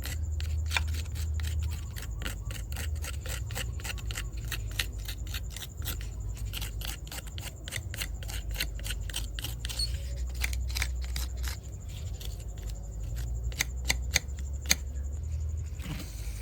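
Rapid light clicks and scratches, several a second, from hand-cleaning a mud-caked 1:24 diecast metal model car, over a low steady hum.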